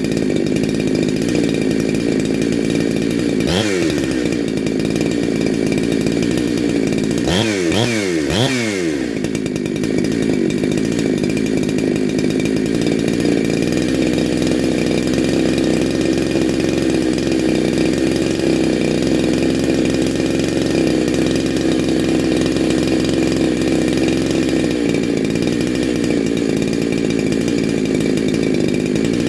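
Big-bore two-stroke chainsaw engine (Neo-tec NH872, a 372XP clone) running at high revs during a heat cycle. The revs drop sharply and pick up again once about 4 s in and three times in quick succession around 8 s, after which it runs steadily.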